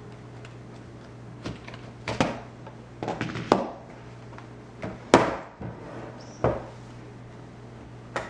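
Sharp plastic clicks and knocks from handling a Lenovo ThinkPad W510 laptop while its battery is being removed, in about five separate clusters with the loudest about five seconds in, over a steady low hum.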